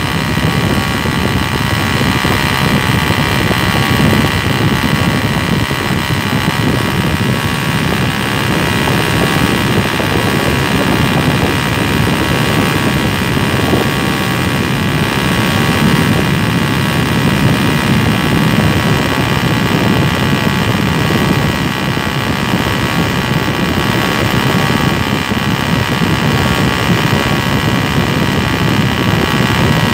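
Homemade single-cylinder nitro model engine running at a steady speed, with no change in pitch.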